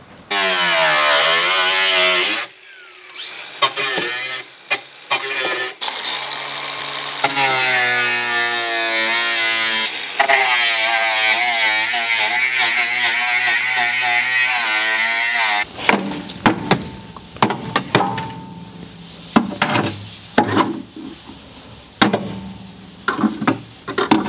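Milwaukee cordless angle grinder cutting through a rusted sheet-steel car floor pan, its motor whine dipping and rising in pitch as the disc bites into the metal, with a brief stop and restart early on. The grinder cuts off about two-thirds of the way in, followed by scattered knocks and clanks.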